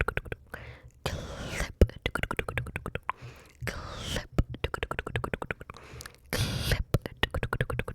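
ASMR mouth sounds made close to the microphone: rapid runs of wet tongue and lip clicks and pops, broken by a few breathy whispered puffs.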